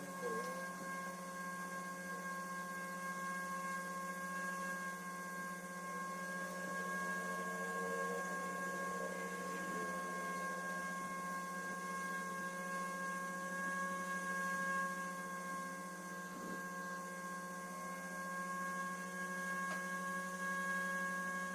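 A steady, even hum made of several fixed tones, with faint wavering sounds in the middle.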